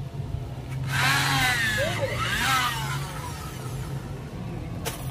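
Corded electric drill boring into a wooden stair step, its motor whine dipping and rising in pitch as the bit bites, for about two seconds. A single sharp knock near the end.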